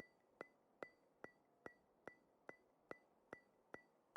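Faint, evenly spaced ticks, about two and a half a second, each with a short high-pitched ring.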